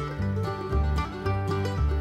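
Background music: an upbeat bluegrass-style tune with plucked strings and a steady bass.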